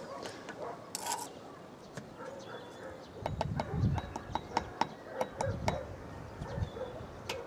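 A run of sharp, irregular clinks and taps of a steel trowel on brick and mortar during bricklaying, starting about three seconds in, over low gusts of wind on the microphone.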